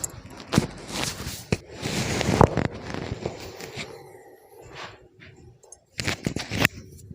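Sharp cracks and pops from a chiropractic spinal adjustment, with rustling of clothing and the treatment table. The cracks come in a cluster in the first three seconds and again about six seconds in.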